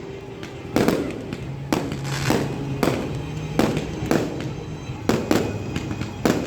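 Aerial fireworks bursting in quick succession, about ten sharp bangs over the few seconds, each trailing off in a short echoing rumble.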